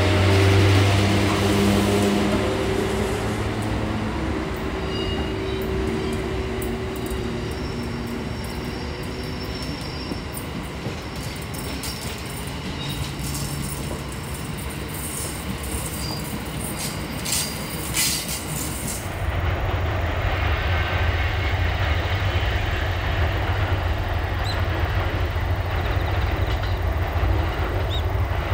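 Train running on the rails: steady humming tones at first, fading over the first few seconds, then a run of sharp clicks and squeals about two-thirds of the way through. After that comes a louder, steady low rumble.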